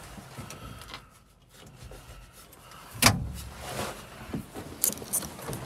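The 1953 International R-180 pickup's engine runs at a low, steady idle while it burns oil residue off a hot exhaust manifold. A single loud clunk comes about three seconds in, and a few light clicks follow near the end.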